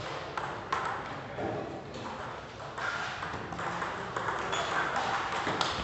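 Table tennis ball clicking off rubber paddles and the table in a rally, a handful of sharp knocks at uneven spacing.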